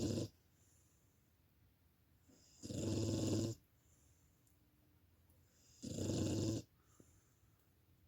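Dog snoring while asleep: a snore about every three seconds, each just under a second long, with quiet breathing between. The tail of one snore comes at the very start, then two full snores about three and six seconds in.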